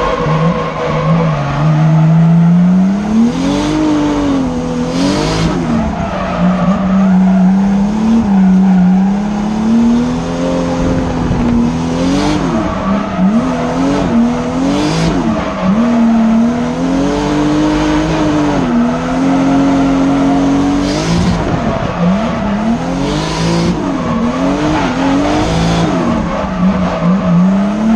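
Drift car's engine heard from inside the cabin, revving up and dropping back over and over as it is driven hard through corners, with short bursts of tyre squeal several times.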